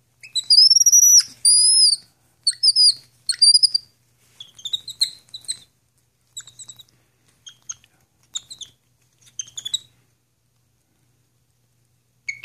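Capuchin monkey giving a run of high-pitched squeaky chirps. The first few calls, in the opening two seconds, are loud and arched; shorter, quieter chirps follow and trail off about two-thirds of the way through.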